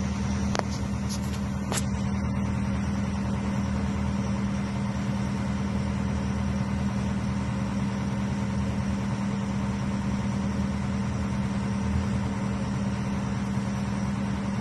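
A boat's engine running at a steady cruising speed, a constant drone with no change in pitch. Two short clicks sound in the first two seconds.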